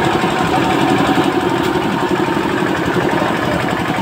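An engine running steadily at idle with a fast, even throb.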